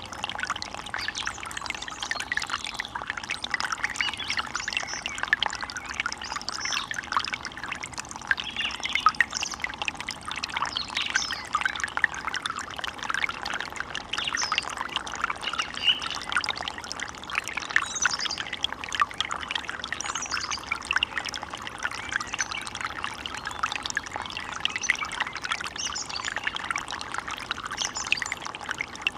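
Running water trickling and splashing steadily, like a small forest stream.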